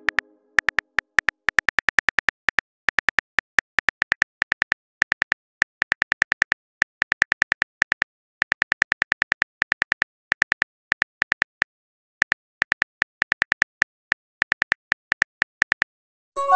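Simulated smartphone keyboard clicks typing out a message: rapid, uneven runs of sharp taps with short pauses between them, and a short message chime right at the end.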